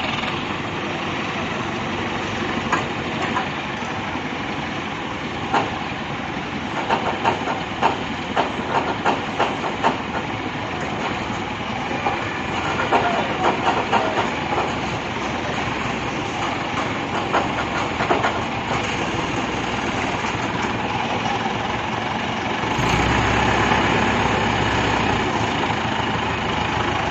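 Heavy machinery engine running with a noisy hiss, with a run of sharp metallic clanks and knocks in the middle; a deeper engine rumble comes in near the end.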